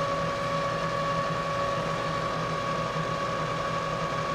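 Vertical milling machine spindle running with an end mill in it, not cutting: a steady motor hum with an even whine.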